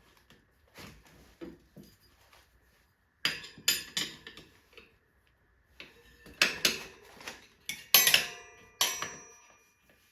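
Tire irons clanking and scraping against a motorcycle wheel rim as the tire is pried back onto the rim: sharp metallic knocks, some with a brief ring, coming in three flurries from about three seconds in.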